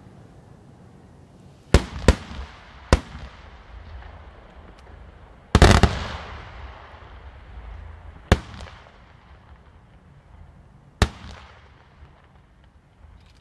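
Aerial firework shells bursting: six sharp bangs, the loudest about five and a half seconds in, each followed by a rolling echo.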